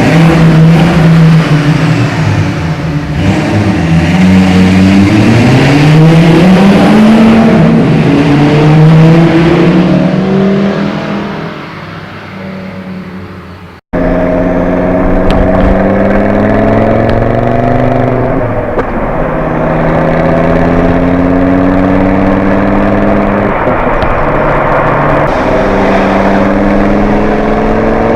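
Volvo C70's five-cylinder engine under way, its pitch rising and falling in repeated sweeps as it revs and pulls. About halfway through the sound cuts off abruptly; after that the engine runs under steady load, its pitch climbing slowly with a few brief dips.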